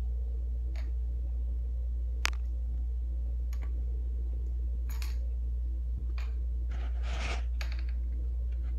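Scattered light clicks and taps as a kitten steps along a bathtub rim, its collar tag and claws knocking on the tub, with the sharpest click about two seconds in and a short rustle about seven seconds in. A steady low hum runs underneath.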